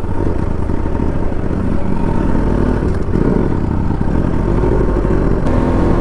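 Bajaj Pulsar NS200's single-cylinder engine running steadily while riding along a road, with wind rumbling on the microphone.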